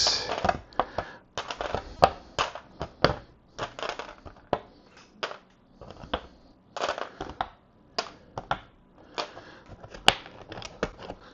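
Clear plastic bags of Lego pieces rustling and crinkling as they are handled, with irregular sharp clicks and taps throughout.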